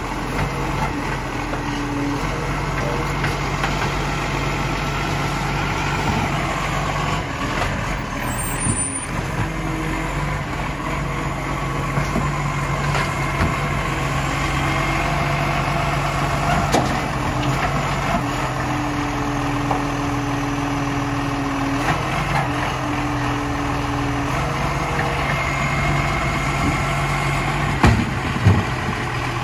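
Side-loader garbage truck's diesel engine running steadily while its hydraulic bin-lifting arm works, with a whine that comes and goes. A few sharp knocks near the end.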